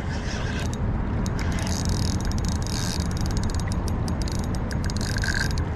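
Spinning reel being cranked to bring in a hooked fish, with a quick run of sharp mechanical clicks from about a second and a half in, over a steady low rumble of wind on the microphone.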